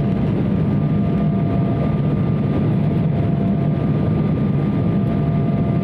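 Steady cabin noise inside an Embraer 170 in its climb: its two GE CF34 turbofan engines and the airflow make a constant low hum, with two faint steady whine tones on top.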